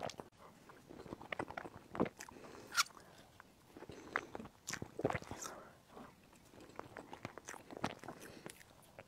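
Close-miked eating sounds: a sip and swallow from a mug, then irregular wet clicks and lip smacks of chewing soft layered mousse cake, with a spoon working in the plastic cake box near the end.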